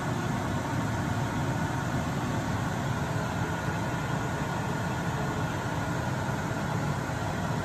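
Kitchen exhaust fan running steadily: a low hum with an even hiss over it and a faint steady whine.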